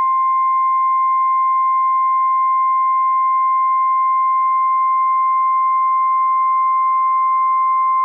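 NOAA Weather Radio 1050 Hz warning alarm tone: one loud, unbroken, steady beep, signalling that a warning message for a flash flood follows.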